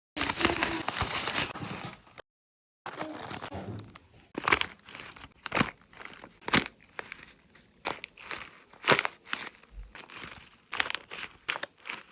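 Paper squishy being squeezed and crinkled by hand: dense crinkling at first, then, after a brief cut, sharp crackles about once a second over softer rustling.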